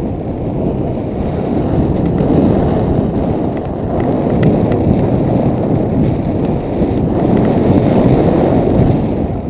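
Wind rushing over a foot-mounted GoPro Hero2 during paraglider flight: a loud, steady low rumble that swells and eases as the glider turns.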